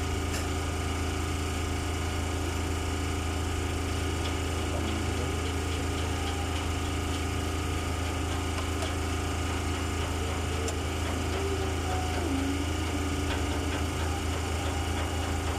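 Steady low drone of an idling engine, unchanging throughout, with a couple of faint clicks.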